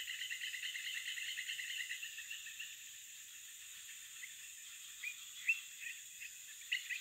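Wild animal calls. A fast pulsed trill stops about two and a half seconds in, a few scattered chirps follow near the end, and a steady high hiss runs underneath throughout.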